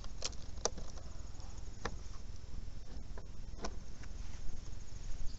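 Footsteps of someone walking through dry grass: a few sharp crunches and clicks spread over the few seconds, over a steady low rumble on the microphone.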